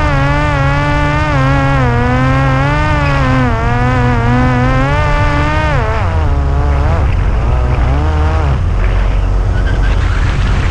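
Parrot Disco's electric motor and pusher propeller droning at a near-steady pitch. About six seconds in the pitch falls sharply, then rises and falls a few times as the motor slows and speeds up. Low wind rumble on the microphone takes over near the end.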